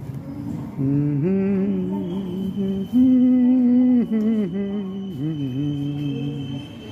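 A person humming a slow wordless tune, holding long notes and letting them waver and slide, with a louder held note about three seconds in. A faint steady high whine sounds underneath.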